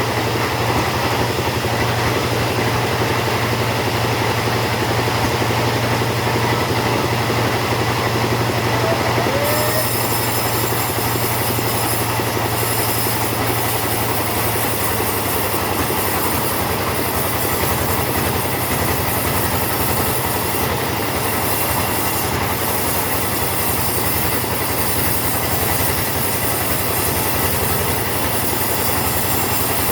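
Chainsaw running steadily at high revs, cutting through teak. About ten seconds in the sound turns brighter and hissier and stays that way.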